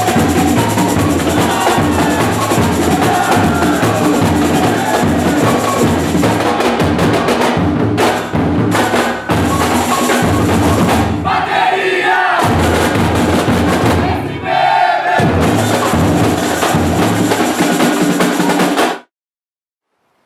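Samba bateria playing a driving samba rhythm: surdo bass drums under tamborims and metal shakers. It dips briefly a few times and cuts off suddenly near the end.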